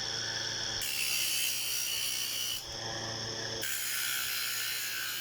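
Small power tool running with a steady whine and an abrasive rubbing hiss, typical of grinding or filing on a homemade grinder. The sound shifts abruptly about a second in and again around the middle.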